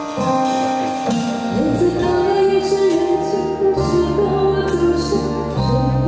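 A live pop band playing with a bass line and repeated cymbal hits, and a woman singing through the PA.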